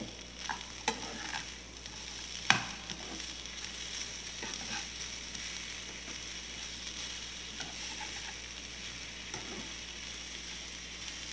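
A steel spoon stirs and scrapes a dry mix of grated coconut, pumpkin pulp and spices in a non-stick pan, with scattered small scrapes and clicks over a faint steady sizzle as the mix roasts on a low flame. One sharp knock comes about two and a half seconds in.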